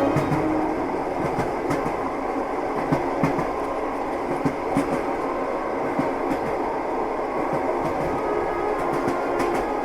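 Train running steadily, heard from inside a compartment: a continuous rumble with irregular clicks and knocks of the wheels going over the rails.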